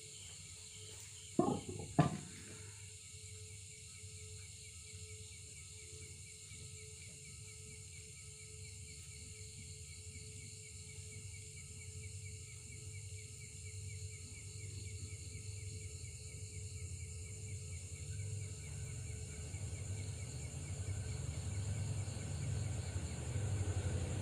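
Steady high-pitched chorus of night insects, broken by two sharp knocks about a second and a half and two seconds in. From about two-thirds of the way in, the low rumble of an approaching diesel train swells and grows steadily louder.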